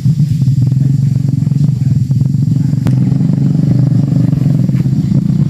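An engine running steadily with an even low rumble, and a single sharp click about three seconds in.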